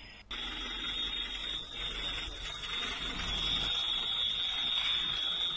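A steady high-pitched alarm tone sounding without a break over a rough background noise, starting abruptly a moment in.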